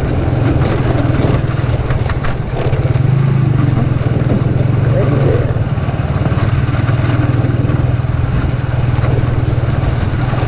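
TVS Apache single-cylinder motorcycle running steadily while being ridden, a constant engine drone with road and wind noise. The rider says the bike is making much worse sounds because of a worn chain sprocket.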